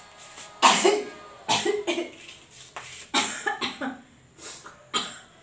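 A woman coughing again and again in short fits, the first the loudest, as fumes rise from chili frying in the wok; she puts it down to being sensitive to chili.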